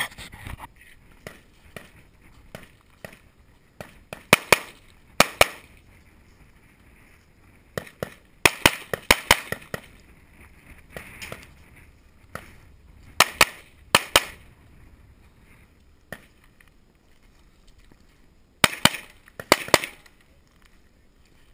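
Pistol shots fired in quick pairs, in several strings with pauses between, from a shooter moving through a practical-shooting course.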